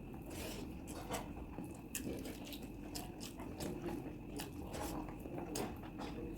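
A person chewing a mouthful of chicken curry and rice, with irregular short wet mouth clicks and crunches.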